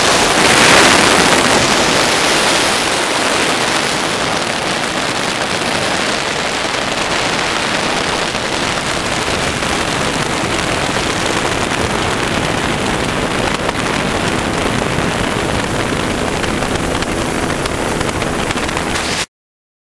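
Steady rushing noise of a Bell 407 helicopter in flight, heard through heavy wind buffeting on a microphone mounted outside the fuselage. It is loudest in the first couple of seconds and cuts off suddenly near the end.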